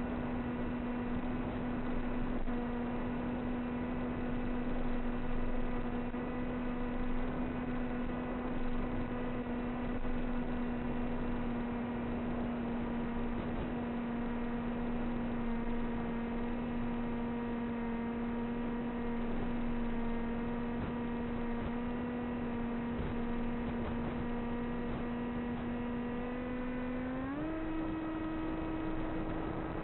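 A steady mechanical hum held at one pitch with overtones, which steps up in pitch near the end and holds there.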